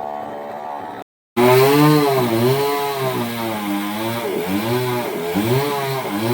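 Chainsaw running steadily, then, after a brief dropout about a second in, running louder with its engine speed repeatedly dipping and rising as it cuts into mango wood under load.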